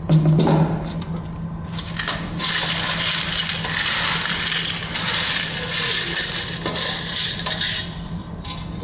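10 mm crushed stone aggregate poured from a steel pan into a steel cylinder mould, a continuous rattle and clatter of stones lasting about five seconds. A single knock comes right at the start, and a steady low hum runs underneath.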